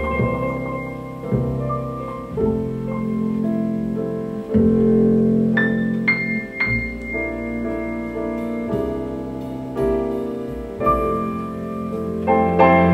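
Recorded piano music played back through a 6V6 single-ended valve amplifier and horn loudspeakers. Slow chords change every second or two.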